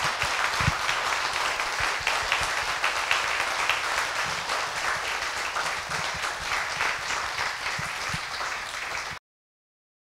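Audience applauding steadily, a dense patter of many hands clapping, which cuts off abruptly about nine seconds in.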